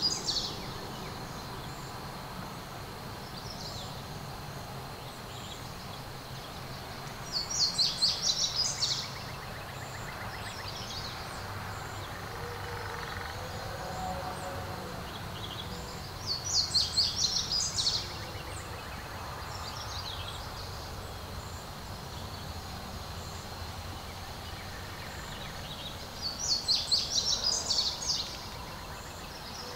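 A small songbird singing a short phrase of rapid, high-pitched notes, about two seconds long, three times, about nine seconds apart, over a steady low background rumble.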